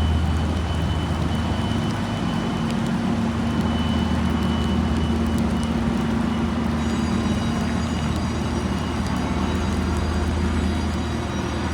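Lake freighter's engines running with a steady low drone as the ship passes close by, over a constant hiss.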